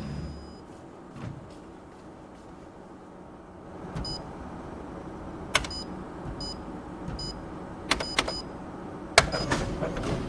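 Office printer: its low motor hum cuts off just after the start. A few sharp mechanical clicks with brief high ringing follow. About nine seconds in, a loud clack and the printer runs again.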